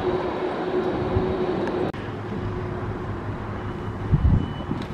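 Boeing 747-400 freighter's jet engines running at taxi power, heard from a distance: a steady whine over a broad rumble. The sound drops abruptly about two seconds in, and a short low thump comes about four seconds in.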